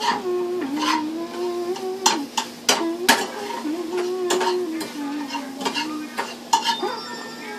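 Scrambled eggs being stirred in a frying pan: a metal utensil scraping and clicking against the pan again and again, over a light sizzle. Underneath, a held tone steps up and down in pitch.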